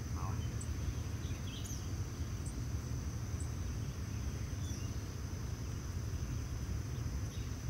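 Outdoor insect chorus: a steady high-pitched drone with short high chirps repeating every second or so, over a constant low rumble.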